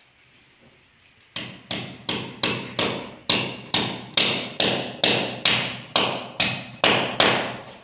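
Hammer driving nails through the clips that hold a WPC wall panel to the wall. A steady run of about sixteen sharp, slightly ringing taps, two to three a second, starts about a second and a half in.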